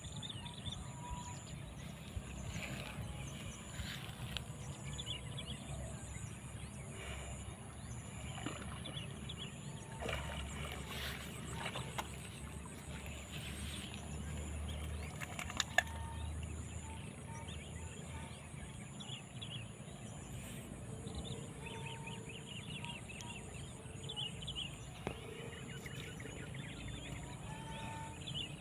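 Muddy water sloshing as a water buffalo shifts and gets up in a shallow mud wallow, over a steady outdoor background. The sloshing swells in the middle, and there is a single sharp knock a little after halfway.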